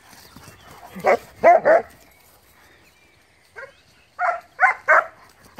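Dogs barking in play while chasing each other: three quick barks about a second in, a faint one, then three more near the end.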